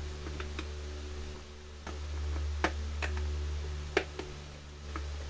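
Hard plastic parts of a toy kitchen set clicking and knocking as a piece is fitted onto its cabinet front: several sharp clicks at uneven intervals, the loudest about halfway and about four seconds in. A steady low hum runs underneath.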